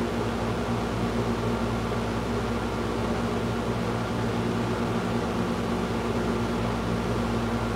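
Steady electric motor hum with a low, even drone of several tones under a constant hiss; it does not change.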